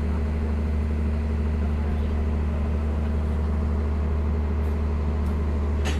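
Railway diesel engine idling, a steady deep hum that does not change. A faint click comes near the end.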